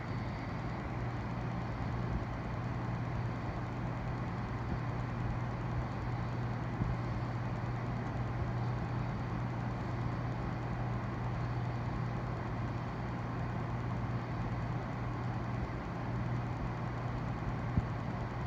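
Aquarium pump running: a steady low hum with an even hiss over it.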